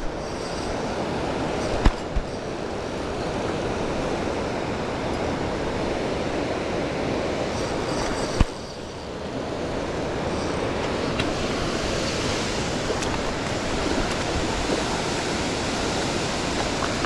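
Waterfall rushing steadily. A few short sharp knocks come about two seconds in and again about eight and a half seconds in.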